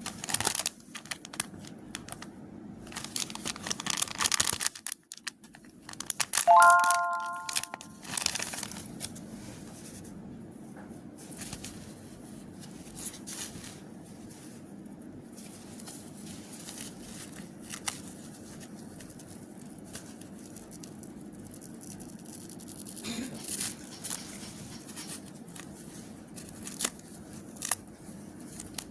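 Steam eye mask packaging being torn open and crinkled, with bursts of tearing and rustling loudest in the first eight seconds, then lighter handling rustles. A brief ringing tone sounds about seven seconds in.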